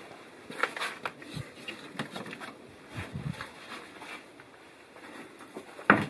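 Irregular footsteps, rustling and knocks on wooden boards inside a small wooden shed, with a sharp loud knock near the end.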